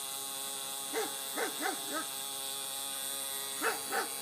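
Car cassette player making a steady grinding buzz, like a starter motor that is not getting enough power. Several short rising-and-falling squeals sound over it.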